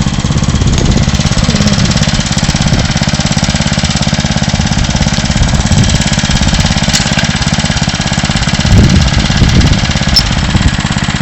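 Tractor engine running steadily at idle, a low, fast, even chugging, growing louder for a moment about nine seconds in.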